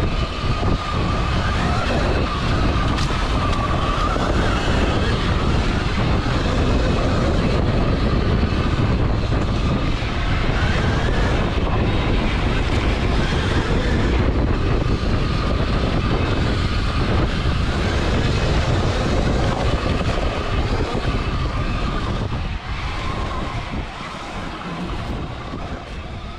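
Electric motor of a high-power Sur-Ron electric dirt bike whining at speed, its pitch wavering up and down with the throttle, under heavy wind buffeting on the handlebar-mounted microphone. The sound fades over the last few seconds.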